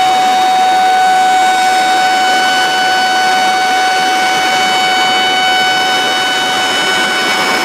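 Water released through a concrete dam's open crest gate, pouring into the plunge pool with a steady rushing sound. A constant warning tone, a steady siren-like note, sounds unchanged over the water throughout.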